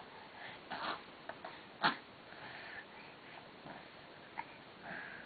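Baby's short, soft, breathy snuffles while crawling on all fours, with one sharp click about two seconds in.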